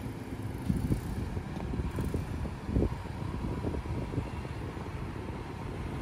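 Nissan Xterra's engine running at low speed as the SUV crawls up out of a sandy rut, a steady low rumble with a couple of brief knocks along the way.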